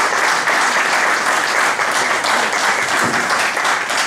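Audience applauding, a dense, even clapping.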